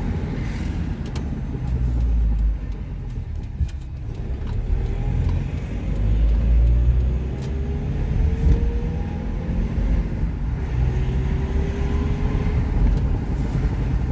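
Car engine and road rumble heard from inside the cabin while driving, with a whine that rises in pitch a few times as the car accelerates.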